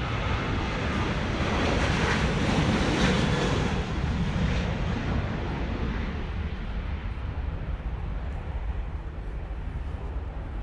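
Jet engine noise of a departing Transavia Boeing 737-800, its twin CFM56 turbofans rushing and rumbling, loudest about two to four seconds in and then fading away.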